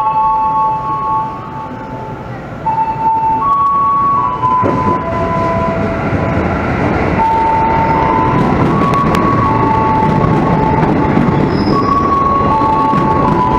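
An electric commuter train rolls into the station, its rumble swelling from about four and a half seconds in and holding steady as the cars run past. Over it, a tune of sustained chime-like notes plays the whole time.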